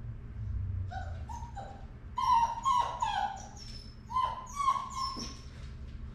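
Puppy whimpering in a series of short, high, whiny yelps, faint at first and louder from about two seconds in.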